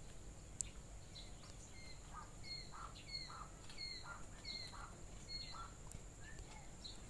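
Quail calling faintly: a run of about seven short chirps, about one and a half a second, then tailing off, contact calls between a hen separated from her chicks and the chicks.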